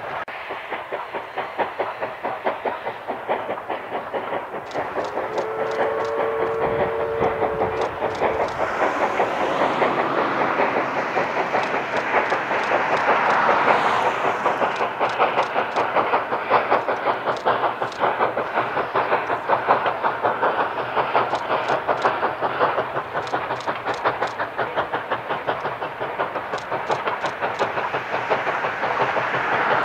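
East Broad Top #16, a narrow-gauge Baldwin 2-8-2 steam locomotive, working along with rapid, rhythmic exhaust chuffs, hiss and the clatter of its coaches. About five seconds in, its whistle sounds one two-note blast lasting about three seconds.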